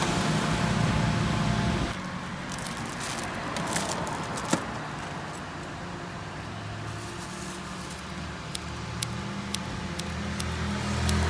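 Street background noise: a steady low rumble of passing motor vehicles, with a few sharp clicks.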